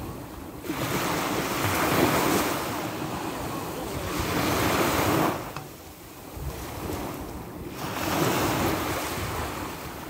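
Sea waves surging and washing in, two long swells about six seconds apart with a lull between them, and wind rumbling on the microphone.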